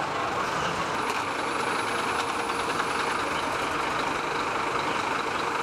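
Steady idling of the emergency vehicles' engines, heard over general street noise.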